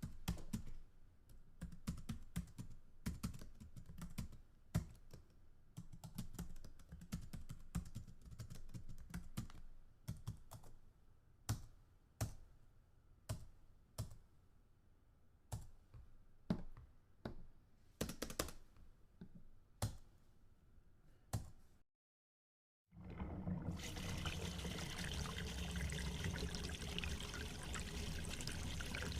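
Clicking like typing on a keyboard: dense keystrokes at first, thinning to single clicks about a second apart. After a brief silence, a steady rushing noise like running or pouring water starts near the end.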